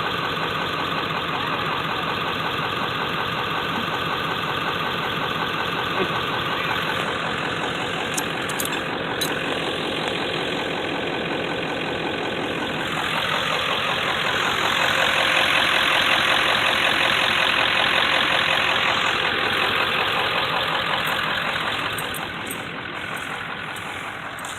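A vehicle engine idling steadily, growing louder for several seconds in the middle and easing off again near the end.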